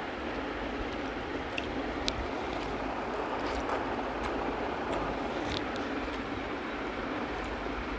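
Steady rushing background noise, with a few faint soft clicks from a person mixing rice by hand and chewing.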